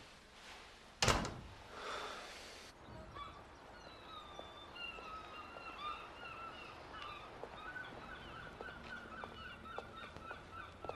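A single loud thud about a second in, then, from about three seconds in, gulls calling over and over in short repeated cries.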